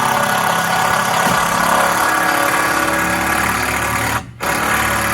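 A motor running steadily and loudly. It cuts out for a moment about four seconds in, then runs again before stopping.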